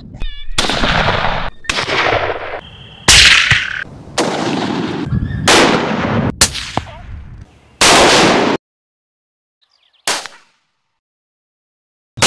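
A series of about eight rifle shots, each a sharp crack followed by a rolling echo that fades or is cut off abruptly, with two short silent gaps near the end.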